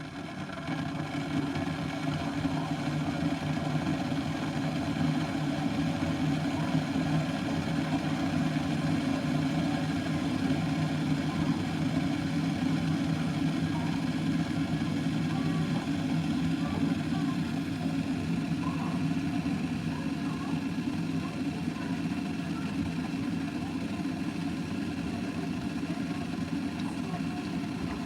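Electric kettle heating water: a steady low rumble that builds over the first couple of seconds, then holds.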